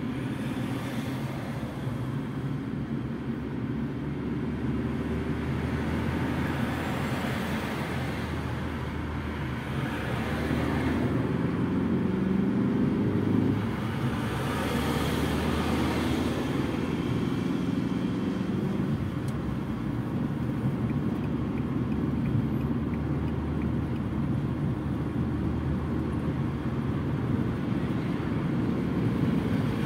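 Fiat Egea driving at motorway speed, heard from inside the cabin: a steady engine hum under tyre and road noise. The engine note climbs for a few seconds near the middle, then drops back.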